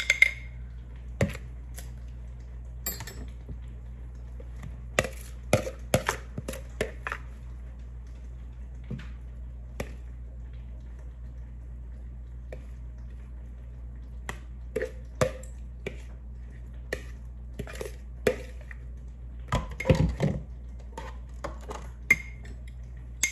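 A utensil tapping and scraping against a glass jar and a mixing bowl as salted shredded cabbage is scooped in and packed down for fermenting: scattered sharp clicks and knocks, some in quick clusters, over a steady low hum.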